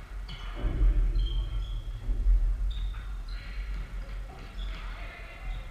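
Futsal game in a sports hall: players' shoes squeak briefly and repeatedly on the wooden floor, with a few thuds of feet and ball. A low rumble swells and is loudest in the first half.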